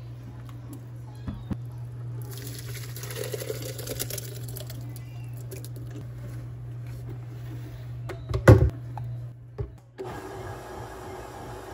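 Mushroom cream soup being poured into a plastic countertop blender jar for a couple of seconds, over a steady low hum. About eight and a half seconds in comes a loud clunk as the jar is set onto the blender's motor base.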